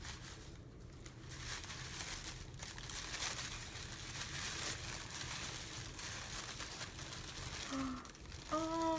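Wrapping paper crinkling and rustling as a wrapped package is opened by hand, with some light tearing.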